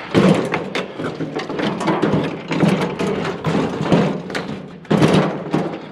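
Metal barbecue grill rattling and clunking as it is handled and rolled over the ground, with irregular knocks throughout and heavier jolts at the start and around five seconds in.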